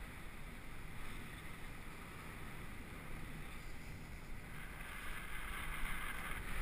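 Wind rushing over a GoPro's microphone under a parasail in flight: a steady low rumble with hiss, which grows louder and hissier about two-thirds of the way in.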